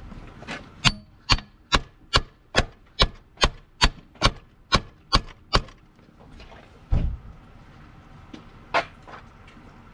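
Quick, even series of sharp knocks, a little over two a second, on the starter of a 1997 Lexus ES300 to free it; it is stuck to the transmission by corrosion. After a pause come a heavier low thump and one more knock.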